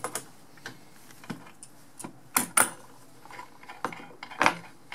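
Metal clinks and knocks as an adjustable spanner and brass compression fittings are handled on a plywood board. A handful of sharp clicks, the loudest two close together about two and a half seconds in and one more near the end.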